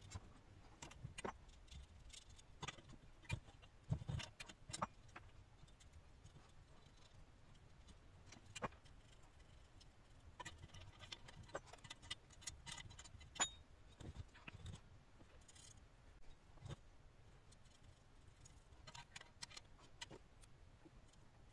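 Faint, irregular clicks and clinks of small metal parts being handled: cast Pelton wheel buckets and bolts knocking against each other and the hub as they are fitted by hand.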